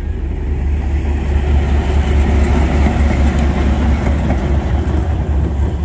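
DA-class diesel-electric locomotive with its EMD two-stroke diesel engine, running past at close range. It gives a deep, steady rumble that grows louder over the first two seconds or so and is loudest as it draws level around the middle.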